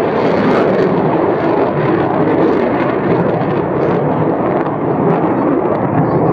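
F-16 fighter jet's single turbofan engine, a loud, steady rushing noise as the jet flies a slow pass across the sky.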